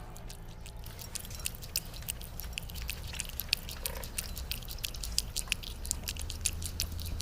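A cat eating wet food: an irregular run of small smacking, chewing clicks over a steady low rumble.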